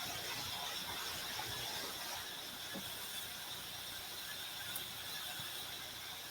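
Steady faint hiss of room tone, with a few faint light ticks.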